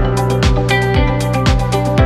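Background music with a steady beat, about two beats a second, over sustained tones.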